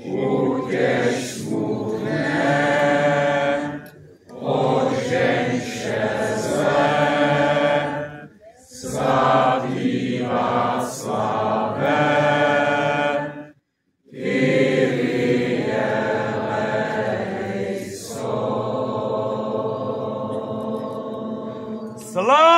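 Voices singing a slow hymn without accompaniment, phrase by phrase with short breaks between phrases. A crowd starts cheering right at the end.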